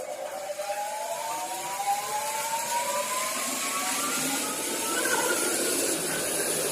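Horizontal band saw machine running, its whine rising steadily in pitch for about five seconds as it speeds up, over a steady hiss.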